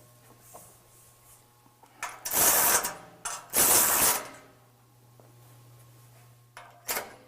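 Ratchet wrench tightening the bolts that hold an aftermarket steel front bumper to a pickup, in two loud runs of rapid clicking about a second apart, then a few short strokes near the end.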